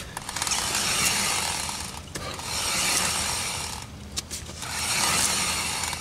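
Front wheel of a 2003 Pontiac Grand Am GT turned by hand in neutral, three pushes about two seconds apart. Each push brings a swelling rubbing, grinding noise from the hub and axle that then fades. The owner wonders whether it is the axle boot stretching, while he hunts for a bad wheel bearing.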